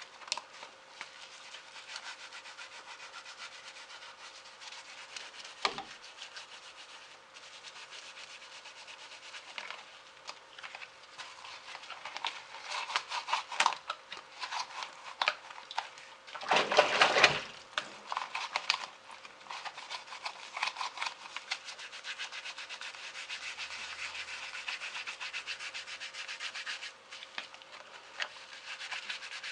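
Hand scrubbing of a kitchen exhaust fan's blades and frame: fast back-and-forth rubbing strokes that keep on in runs, with one louder, heavier scrub a little past the middle.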